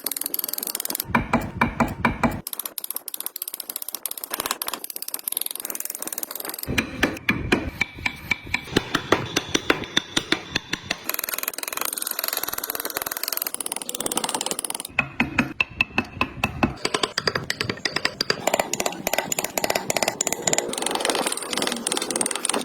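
Wood being worked with hand carving tools: fast runs of sharp taps and scraping cuts, several a second, in short stretches that change character every few seconds.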